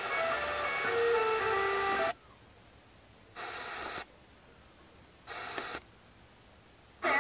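Car radio scanning the medium-wave band. The station's music cuts off about two seconds in and the set goes mute while it seeks. Two half-second snatches of station audio break through as it passes frequencies, and another station's music comes in near the end.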